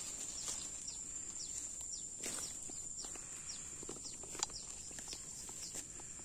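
A steady high-pitched insect drone, with a bird's short falling chirps repeated about twice a second over it. A few faint clicks of vegetation are also heard.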